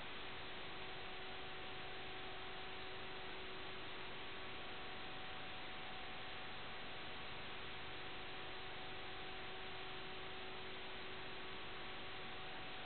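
Steady static hiss with a few faint, constant hum tones underneath; it does not change at all.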